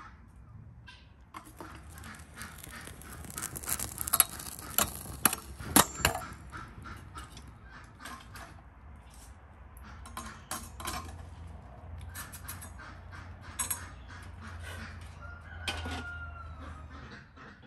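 Metal tongs clinking and scraping against a fuel-fired samovar as it is stoked, with a few sharp, louder clinks about four to six seconds in. Poultry call in the background, with one short honk near the end.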